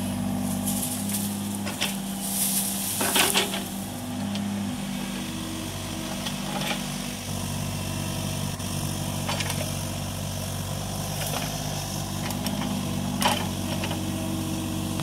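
Kubota U35-4 mini excavator's diesel engine running steadily under hydraulic load, its hum stepping slightly in pitch as the digging arm works. Several crackles and knocks come from the bucket tearing through brush, roots and soil, most around two to three and a half seconds in and again near the end.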